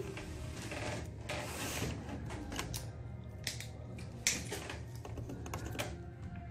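Handling noise from a handheld phone and a plastic water bottle: scattered light clicks and taps, with a sharper click about four seconds in. Under it runs a steady low hum.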